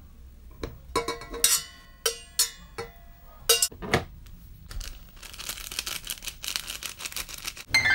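Stainless-steel chopsticks and a metal pot clinking against a bowl as noodles are tipped out, a handful of sharp clinks that each ring briefly. After about four and a half seconds comes the crinkling of plastic seasoning sachets being squeezed and shaken over the noodles.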